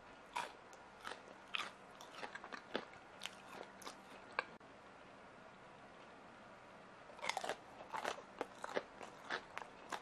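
Someone biting and chewing crisp candied sweet potato, the hard sugar shell cracking in a run of sharp crunches. The crunches pause for a couple of seconds midway, then start again.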